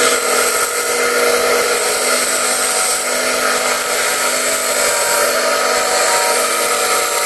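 Bench grinder running with a steady motor whine, a tungsten electrode held against its grinding wheel with a high grinding hiss: the electrode's tip being sharpened to a point for TIG welding.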